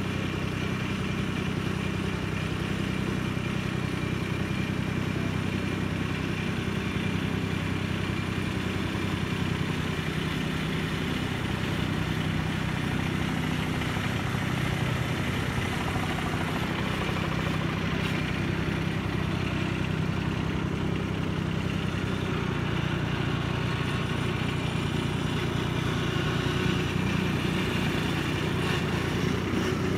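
Small single-cylinder engine of a vintage garden tractor running steadily at a constant speed while the tractor drives along.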